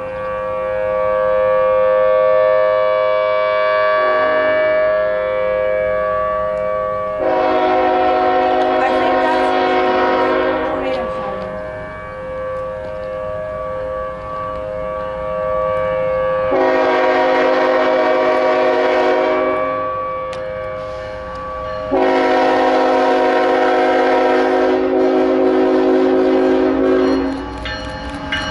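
An outdoor tornado warning siren holds a steady pitch, its loudness slowly swelling and fading. Over it a train's multi-tone air horn blows three long blasts that start and stop abruptly, the last the longest at about five seconds.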